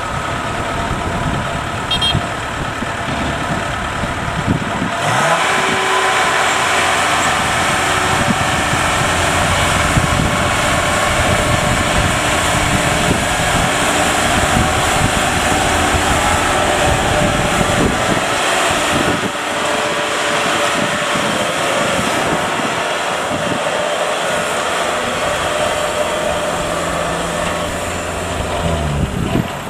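Kubota DC70 combine harvester's diesel engine running under load as the tracked machine crawls off a small ferry boat over the ramp onto the bank. The engine runs up louder about five seconds in and holds there.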